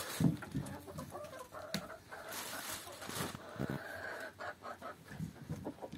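Chickens clucking, with short wavering calls over a few soft low thuds.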